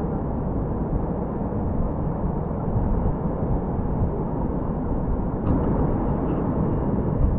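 Steady low rumbling noise, with a few faint clicks about five and a half to six and a half seconds in.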